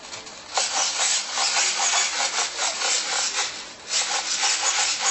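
Rubbing and scraping noise from the foam Multiplex EasyStar model plane being shaken and handled. It starts about half a second in and breaks off briefly near four seconds before starting again.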